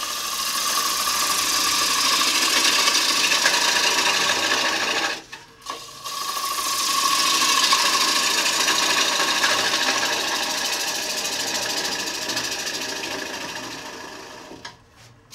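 Long-handled hook tool cutting the inside of a wooden bowl spinning on an electric lathe, a continuous shearing hiss of the cut. It comes in two long passes, with a brief break about five seconds in.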